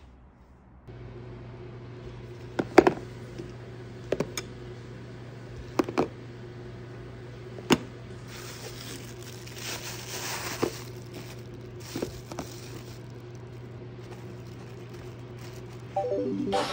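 Plastic food containers being handled and packed into an insulated lunch bag: a series of sharp clicks and knocks, with rustling of the bag's lining partway through, over a steady low hum.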